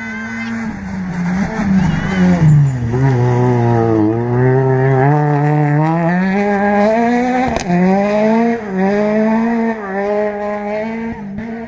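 A rally car's engine passing at full effort. The revs drop as it slows and goes by, then climb through several upshifts as it accelerates away, with a sharp crack at one gear change.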